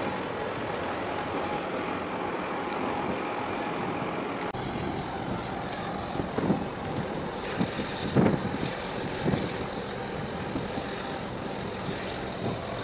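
Steady motor rumble mixed with wind noise on the microphone, changing abruptly about four and a half seconds in, with a few louder buffets in the middle.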